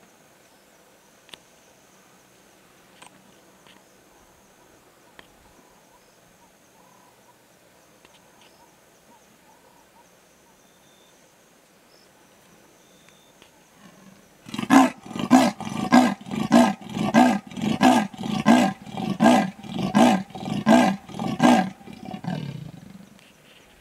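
Female leopard's territorial rasp, the 'sawing' call: a loud run of about fifteen rough, coughing strokes, about two a second, starting some fourteen seconds in and tailing off softer near the end.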